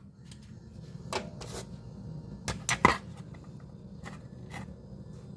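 Parts of a car's fuel filler neck assembly being handled and pushed into place: a few sharp clicks and knocks, the loudest about three seconds in, over a low steady hum.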